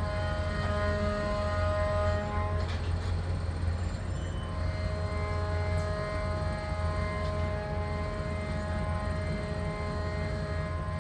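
Motorboat engines running at low speed as the boats pull away: a steady low rumble with a sustained humming whine that drops out about two and a half seconds in and returns a couple of seconds later.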